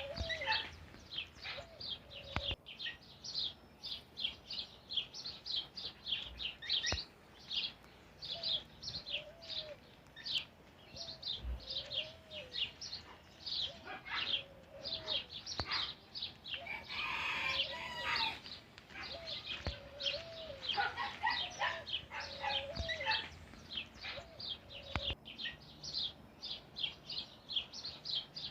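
Birds chirping: a steady stream of short, high chirps, with lower hooked notes recurring every second or two and a brief, rougher call a little past the middle.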